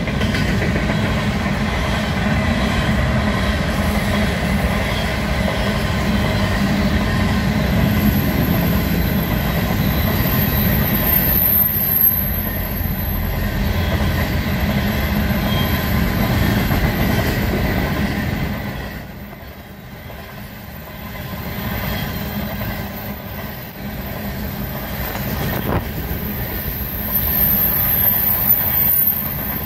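Empty coal cars of a freight train rolling past: a steady rumble and clatter of steel wheels over the rails. A thin, high wheel squeal rises about a third of the way in and again near the end. The noise dips briefly about two-thirds through.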